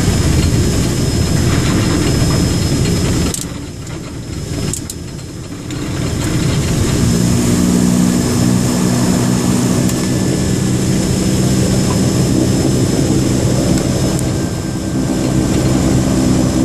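Beechcraft 99's twin turboprop engines and propellers heard from the cockpit during the landing rollout: a loud steady drone that drops off sharply about three seconds in, then builds back to a steady drone with a low hum from about seven seconds in.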